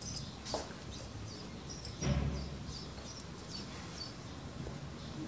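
Repeated short high-pitched chirps over quiet background noise, with two dull thumps, one about half a second in and a louder one about two seconds in.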